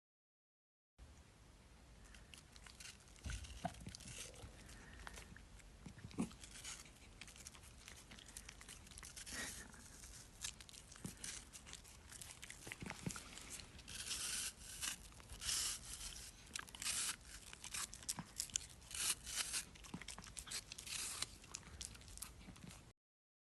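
A dachshund chewing crunchy food, with irregular crisp crunches that come thicker and louder in the second half.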